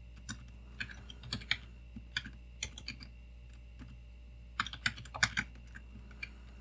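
Typing on a computer keyboard: irregular key clicks, with a quicker run of keystrokes about two-thirds of the way through.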